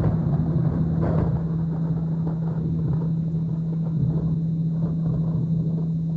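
Steady 165 Hz binaural-beat tone with rolling thunder rumbling over rain, the thunder strongest about a second in.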